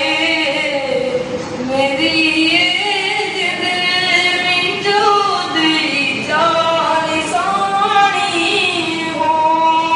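A boy's high voice singing a Chambyali folk song solo into a handheld microphone, in phrases of long held notes that bend and waver in pitch, with short breaths between phrases.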